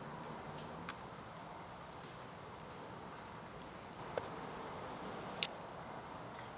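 Steady outdoor ambience, a faint even hiss, with a few short sharp clicks or chirps, the clearest about five and a half seconds in.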